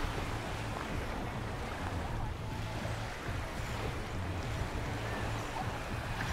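Beach ambience: surf washing in and wind, over a low steady hum.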